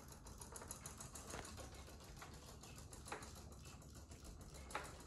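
Faint, irregular clicks and ticks from Zuru Robo Fish robotic toy fish swimming in bathtub water, their tails flicking, about half a dozen sharp ticks over a soft steady background.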